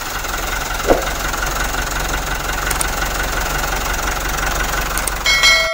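Engine running steadily, with a ringing bell-like chime near the end.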